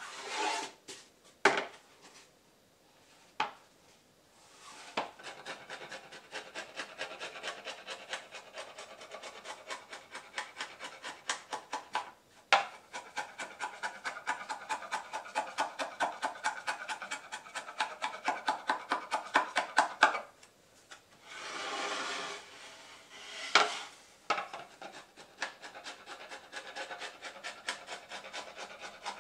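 Hand file rasping across a recycled synthetic decking board in quick, even back-and-forth strokes, shaping the surface of a snowskate. A few sharp knocks at the start, and a short pause in the filing a little past the middle.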